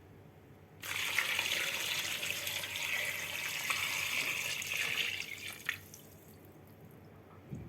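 Water running from a tap in a kitchen, starting suddenly about a second in and stopping about five seconds later, followed by a soft knock near the end.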